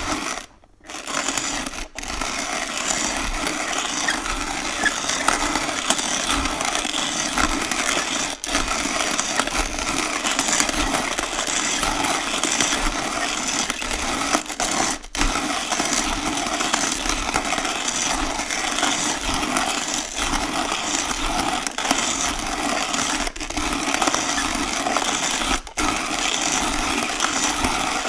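Hand coffee grinder being cranked, a continuous rough grinding rasp. It stops briefly about half a second in, with a few short breaks later.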